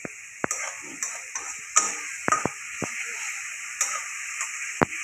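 Steel spatula stirring and scraping a frying onion-and-masala mixture in a steel kadai, with repeated sharp clicks as it knocks against the pan over a steady frying sizzle.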